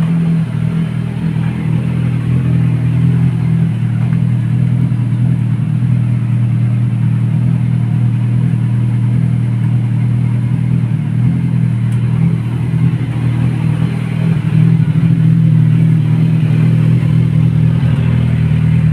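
Kawasaki Ninja 1000SX inline-four idling steadily with its stock exhaust canister removed, warming up after a cold start. It gets a little louder about three quarters of the way through.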